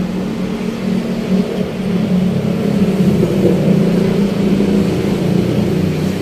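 Steady engine hum, growing louder about two seconds in, its pitch wavering slightly.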